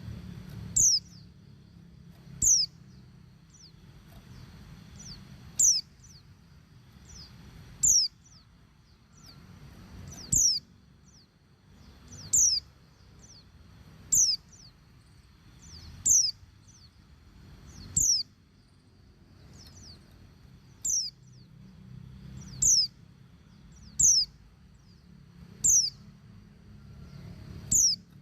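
A female white-eye (pleci) calling, the call used to lure and stir males into song. It gives short, high, quickly falling call notes, repeated about every two seconds.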